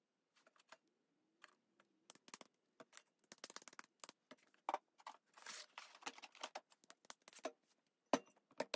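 Handling noise on a pottery wheel: scattered light knocks, taps and scrapes as clay balls and a board are lifted off and a hand sets down on the wheel bat, with one sharper knock about a second before the end.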